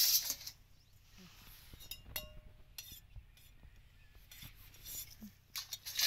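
Stainless steel plates and utensils clinking and scraping as food is served, with one short metallic ring about two seconds in and some rustling handling noise near the start and end.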